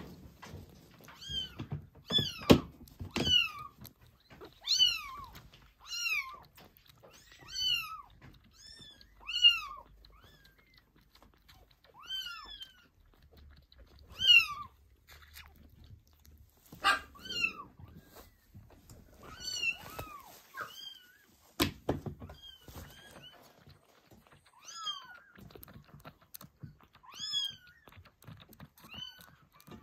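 Newborn kittens mewing over and over, thin high cries that rise and fall in pitch, roughly one every one to two seconds. A few sharp clicks come in among them.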